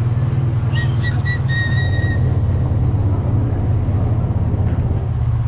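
Quad bike (ATV) engine running steadily as it rolls along. About a second in, a high whistle sounds as a few short notes and then one longer held note.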